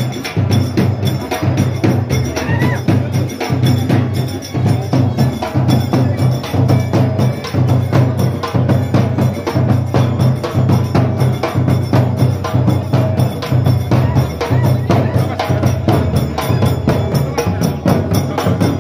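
Procession drums beaten with sticks in a fast, continuous, steady beat.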